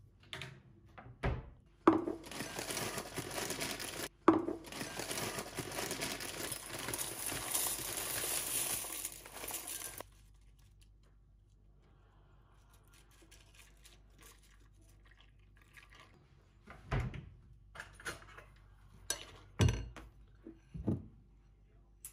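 Kitchen handling sounds while a bowl of cornflakes and milk is made: a few knocks and clunks at the fridge, then a steady rushing noise of about eight seconds that cuts off abruptly. A faint pour of milk onto the cereal follows, then a few soft thumps.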